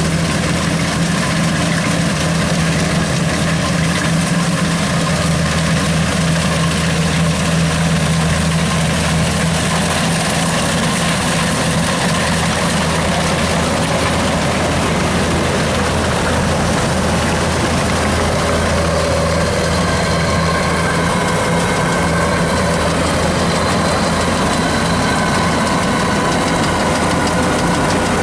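Kubota DC93 rice combine harvester's diesel engine running at a steady speed. A faint higher whine joins in about twenty seconds in.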